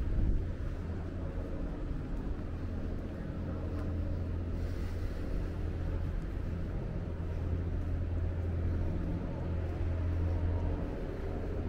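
A steady low engine drone that runs on without a break.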